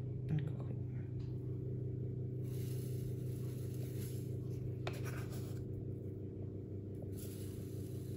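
Granulated sugar poured into a kitchen robot's bowl in three short spells, each a soft hissing trickle, over a steady low hum.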